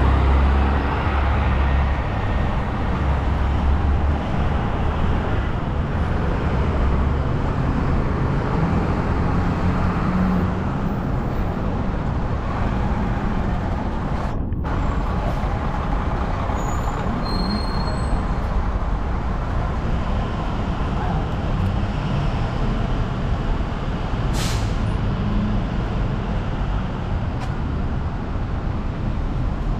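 Downtown street traffic with heavy vehicles such as buses and trucks. A deep engine rumble is strongest for the first several seconds, and a short sharp hiss comes about 24 seconds in.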